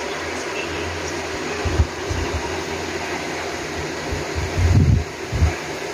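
Steady whir of a running fan, with a few dull low thumps: one short one about two seconds in, and a longer, louder one followed by a short one near the end.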